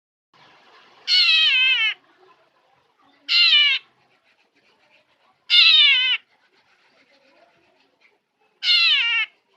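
Black drongo mimicking a cat's meow: four loud meow-like calls, each sliding down in pitch at the end, about two to three seconds apart.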